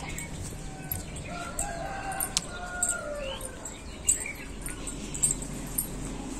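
A rooster crowing once, a long call that falls away at its end, with a few sharp clicks around it.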